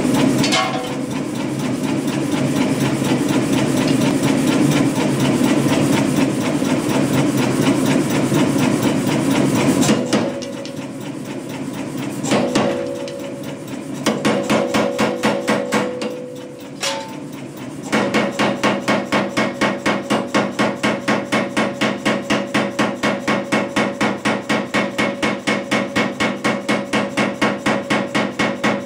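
Kuhn self-contained air power hammer striking hot steel. About ten seconds of fast, continuous blows, then a lull with a few single strikes. From about two-thirds of the way in come steady blows, about four a second, driving a handled top tool into the hot work.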